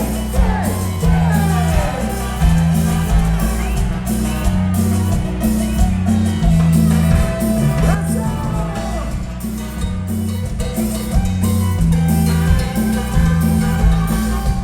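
Live cumbia band playing with a steady dance beat: a repeating bass line under regular percussion strokes, with melody lines on top.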